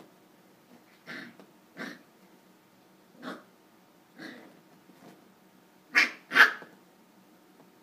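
Pembroke Welsh Corgi puppy barking in play: six short barks, spaced out, with the last two, close together about six seconds in, the loudest.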